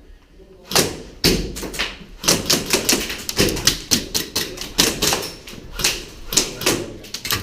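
Airsoft guns firing a rapid, irregular string of sharp shots, several a second, starting just under a second in.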